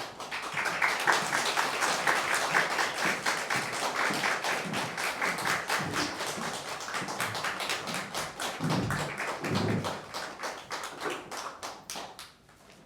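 Audience applause that starts suddenly, then thins to scattered claps over the last few seconds.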